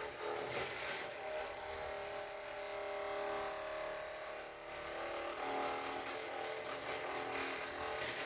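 Percussion massage gun running with a steady motor whir and buzz; its pitch shifts about five seconds in.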